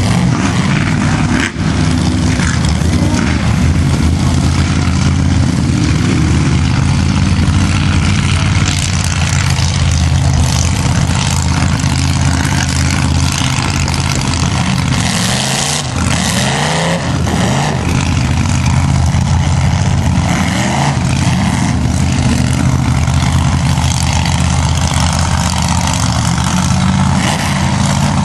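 Lifted mud truck's engine running loud as it drives through the mud pit, the throttle rising and falling in revs about halfway through and again near the end.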